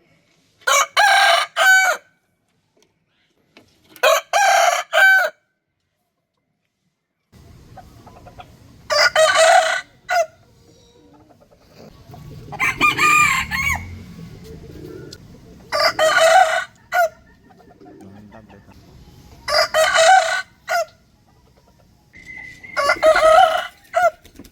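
Rooster crowing: seven cock-a-doodle-doo crows a few seconds apart, each lasting about a second and a half. A low steady background noise comes in about seven seconds in, under the later crows.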